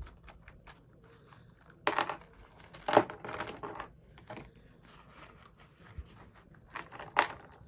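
Small plastic and metal hair accessories being handled out of a pouch: scattered light clicks and clinks, the sharpest about two and three seconds in and again near the end.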